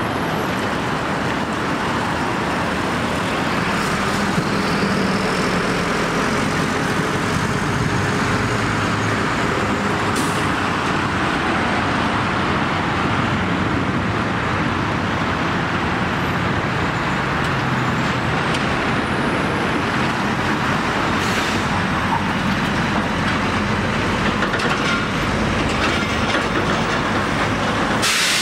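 Diesel engines of heavy trucks and articulated container lorries running as they drive past and pull round a roundabout, over steady road traffic noise.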